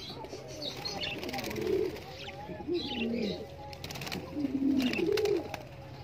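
Pigeons cooing again and again in low, rolling coos, with higher budgerigar chirps and chatter over them.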